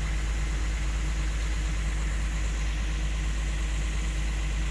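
Off-road 4x4 engine running steadily at low revs, an even low drone with no revving.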